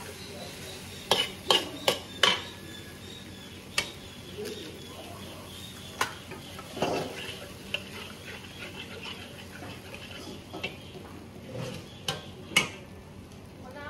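Stir-frying in a pan: a utensil clanks and scrapes against the pan several times, with a quick run of clanks near the start and more spread out later, over a steady sizzle.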